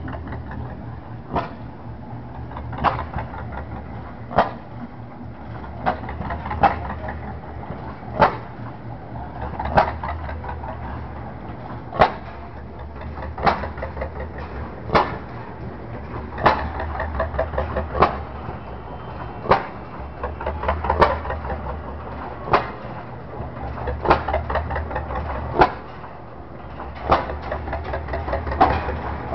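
A slow old single-cylinder stationary engine firing with one sharp pop about every one and a half seconds, with quicker ticking between the pops, over a steady low rumble of engines running.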